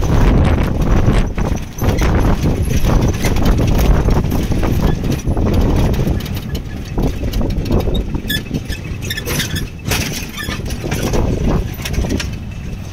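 Old open-sided jeep on the move, heard from inside the cab: a steady low rumble of engine, road and wind, with a busy clatter of knocks and rattles from the body and roof frame.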